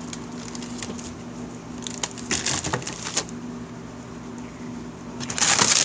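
Rustling and scraping handling noise on the microphone, with a louder burst of rubbing near the end, over a steady low electrical hum.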